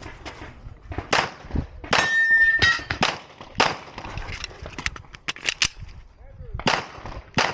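Glock 34 9mm pistol fired in an irregular string of about ten shots, in pairs and small groups, with a steel target ringing with a clear metallic tone after a hit about two seconds in.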